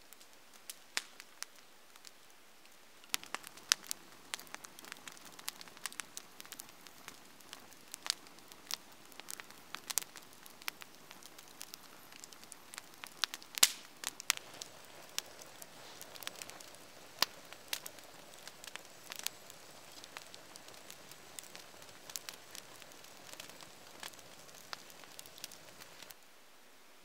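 Wood campfire crackling, with sharp irregular snaps and pops and one especially loud pop about halfway through. The crackling is sparse for the first few seconds, then grows busier over a soft rush of flame that falls away near the end.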